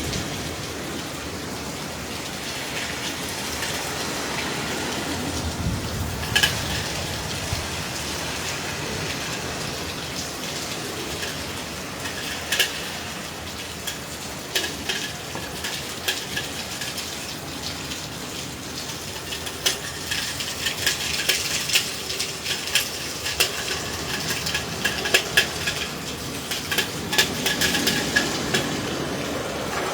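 Hurricane wind and driving rain: a steady rushing noise with many sharp ticks of raindrops striking hard surfaces, coming thicker in the second half.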